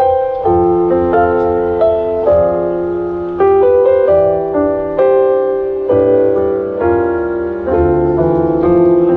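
Piano playing slow, sustained chords over a low bass line, a new chord struck roughly every half second to a second: the instrumental break of a slow ballad.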